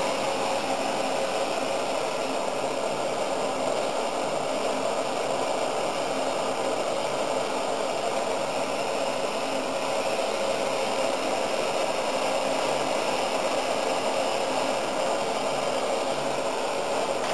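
Handheld gas blowtorch burning with a steady hiss, its flame heating the nozzle of a screw oil press's press head.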